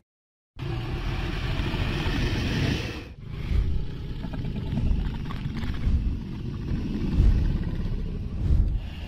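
Dragon flying sound effect: a low, rumbling rush of wind with wingbeat whooshes swelling every second or so. It starts after half a second of silence and dips briefly about three seconds in.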